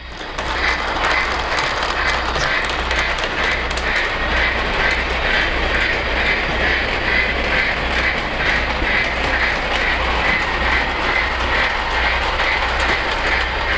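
Lionel LionChief Polar Express Elf Work Train steam locomotive running with its electronic steam-chuff sound effect going in a steady, even rhythm, over a steady low rumble of the model train on the track.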